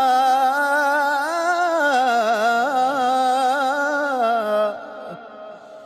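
A man singing an Arabic devotional poem (nasheed) solo, with no instruments. He holds one long melismatic phrase full of quick wavering ornaments, which fades out about five seconds in.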